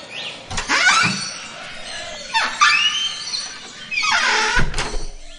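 A noisy aviary of many captive birds calling and squawking together, loud overlapping screeches and calls; the din drops away sharply near the end.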